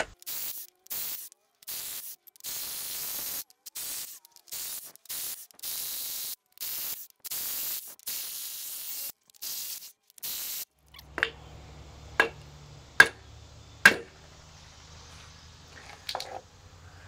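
A compressed-air tool run in about fifteen short on-off bursts of hissing noise, followed by four sharp metal knocks about a second apart.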